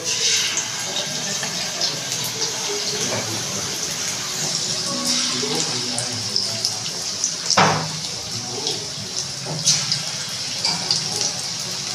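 Rice-flour pakoras deep-frying in hot oil in an aluminium kadai: a steady sizzle with scattered small crackles, and one sharper, louder burst about seven and a half seconds in.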